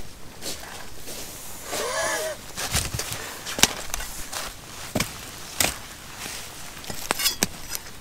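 Irregular sharp knocks and taps, about seven of them spread unevenly, with a brief pitched vocal sound about two seconds in.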